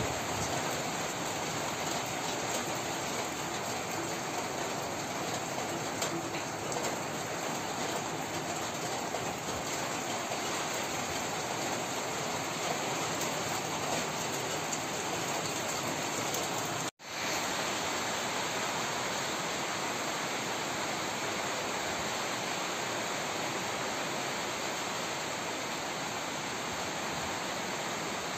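Steady rush of heavy rain together with rain-swollen mountain streams, an even hiss and roar that cuts out for a split second about 17 seconds in.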